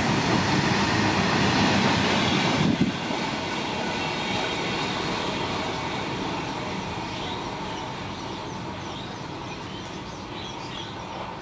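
Indian Railways train passing on the line; its noise drops suddenly about three seconds in, then dies away slowly.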